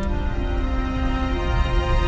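Background music of long held notes that shift pitch every second or so, over a steady low rumble.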